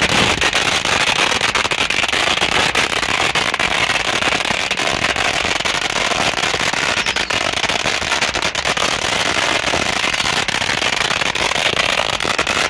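A 16,000-count roll of Red Apple flash crackers going off in a continuous, densely packed string of sharp bangs, so fast that they run together into one steady crackle.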